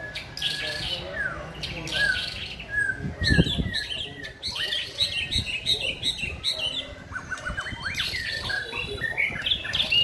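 Several caged white-rumped shamas singing together: overlapping clear whistles, slurred notes and quick chirps, with a fast run of rising notes about three-quarters of the way through. A single low thump sounds about three and a half seconds in.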